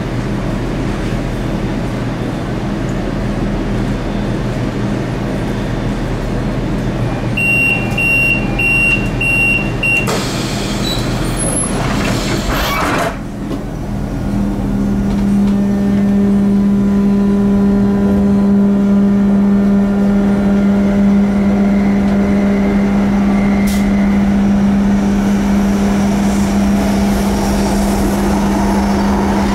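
Light-metro tram standing at an underground platform with its equipment humming. About seven seconds in, a run of about five short high warning beeps sounds, followed by a hiss of air for a few seconds. Then a strong steady drone comes in as the tram moves off into the tunnel.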